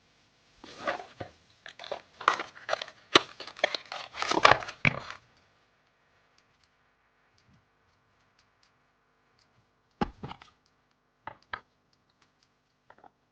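Packaging being torn open and crinkled in quick, scratchy bursts for about five seconds, then a few light clicks and taps about ten seconds in.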